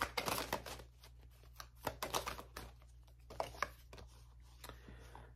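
Tarot cards being shuffled and handled: irregular soft flicks and slaps of card stock, in clusters with short pauses between.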